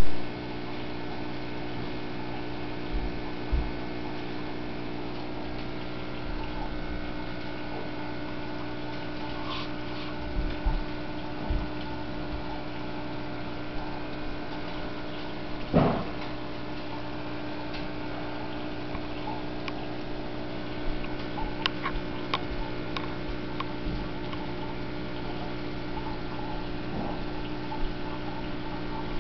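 Aquarium sump filtration humming steadily with water running through it. A single knock comes about halfway through, and a few faint clicks follow later.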